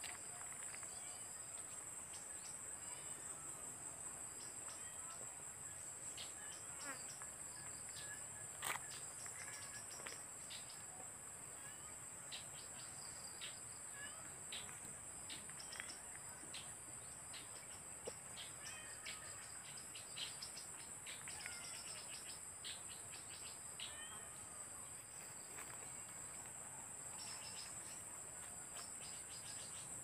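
Forest insects, crickets or similar, keeping up a steady high-pitched drone, with many short bird chirps scattered over it. A single sharp click sounds about nine seconds in.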